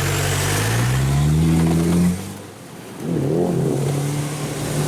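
Off-road 4x4 SUV engine revving hard under load, its pitch rising for about two seconds, then the throttle is suddenly released. After a brief lull the engine picks up again and holds a steady note.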